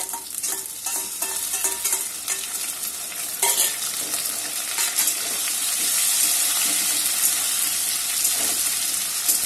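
Chopped tomatoes and ginger sizzling in hot oil with fried potatoes in a steel kadai, a metal spatula scraping and knocking against the pan as it stirs. The sizzle swells and stays loud and steady from about three seconds in.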